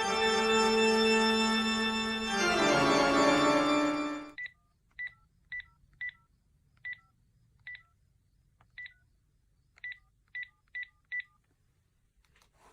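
A held electronic organ-like chord that shifts to a new chord about two seconds in and stops just past four seconds. It is followed by about a dozen short, high phone-keypad beeps at uneven spacing as a phone number is dialed.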